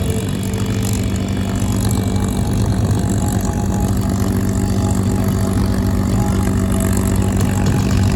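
Steady engine drone with a low, even hum that holds its pitch.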